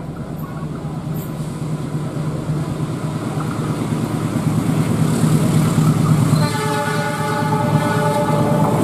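Diesel-electric locomotive hauling a container freight train, its engine drone growing louder as it approaches. About six and a half seconds in it sounds its multi-tone horn for roughly two seconds.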